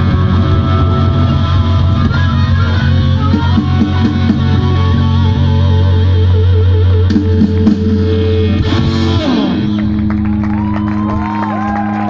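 Live blues-rock band playing: electric guitars, bass, drums and harmonica. About nine seconds in the full band gives way to a held closing chord, with bending guitar notes over it.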